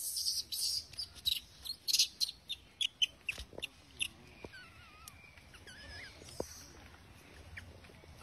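Quick crackling and rustling, like dry leaf litter, for the first few seconds, then a few short, wavering high-pitched calls from a small animal.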